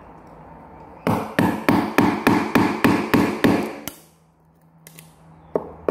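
Hammer striking a wood-handled chisel as it chops into a wooden carpet tack strip beside a nail. About ten quick blows come at roughly four a second, each ringing briefly, followed by a few lighter taps.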